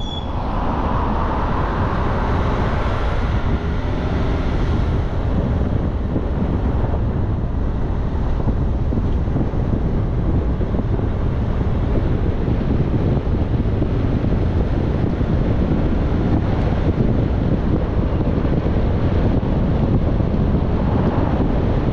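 Steady low rumble of wind buffeting the microphone, mixed with the road noise of a moving bus.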